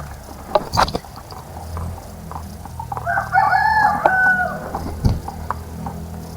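A rooster crows once, about three seconds in, a single crow lasting about a second and a half. There are two sharp knocks just before, and a steady low hum underneath.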